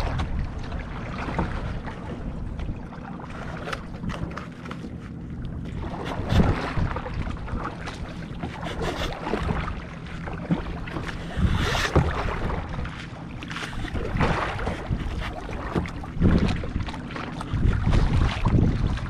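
Water splashing and slapping against a kayak's hull and paddle splashes as it moves across choppy water, with gusts of wind buffeting the microphone.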